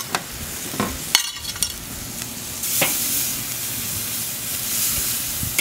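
Raw T-bone steak sizzling as it is laid on the hot grate of a charcoal kettle grill, the sizzle getting louder about two and a half seconds in. A few sharp clicks of metal tongs come in the first second and a half.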